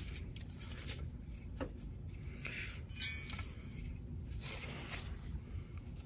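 Faint scraping and small clicks of fingers handling a corroded aluminium refrigerator condenser tube, its surface crusted and flaking with corrosion.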